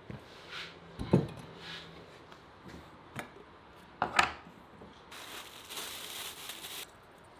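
Handling at a wooden table: a dull knock about a second in, then a glass teapot set down with a clink around four seconds. After that, a plastic bag of dried herbs rustles for nearly two seconds.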